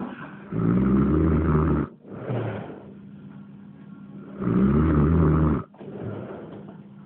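Heavy snoring: two loud snores about four seconds apart, each lasting over a second, with a softer breath out after each.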